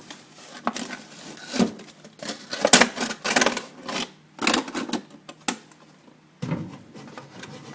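Handling noise on a phone's microphone: irregular clicks, taps and rubbing as the phone is fiddled with, over a faint steady hum.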